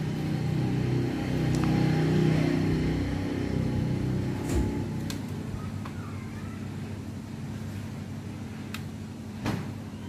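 A steady motor hum, like a passing engine, swells over the first couple of seconds and then fades. A few sharp clicks and taps come through it, the loudest near the end.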